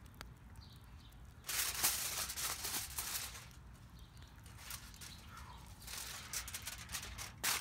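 Two stretches of crackling, rustling noise, the second ending in a sharp crackle, with a few faint bird chirps in between.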